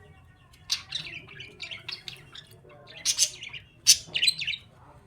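Pet birds chirping, a run of short sharp calls in several quick clusters.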